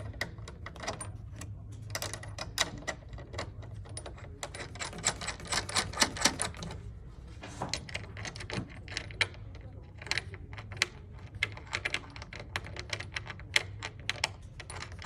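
Bursts of rapid metallic clicking and clinking from small bolts and nuts being handled and fitted into the bed frame, over a steady low hum.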